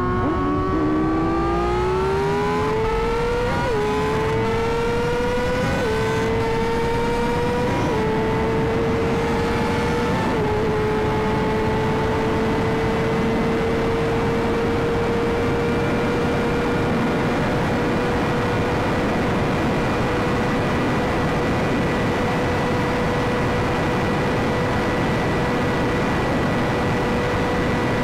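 Yamaha R6 sport bike's inline-four engine accelerating hard, its pitch climbing and dropping back at four quick upshifts in the first ten seconds, then holding a steady high cruising note over a constant rush of wind.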